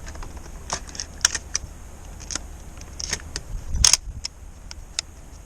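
Scattered light clicks and rattles, like small hard objects being handled, with a sharper clack about four seconds in.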